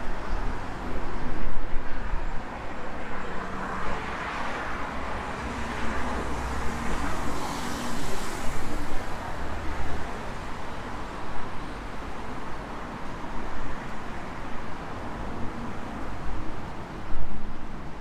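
City street ambience: a steady rush of road traffic going by, with a vehicle passing louder about four to nine seconds in.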